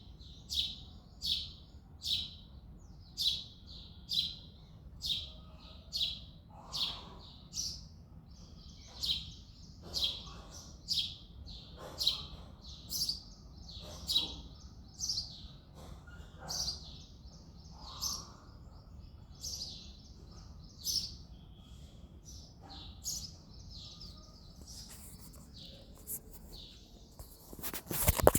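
Male house sparrow chirping over and over, short high chirps at about one a second. Near the end a loud burst of sharp clicks cuts in.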